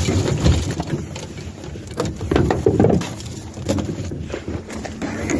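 Handling noise: irregular rubbing and knocking against a phone's microphone, with scattered sharp ticks.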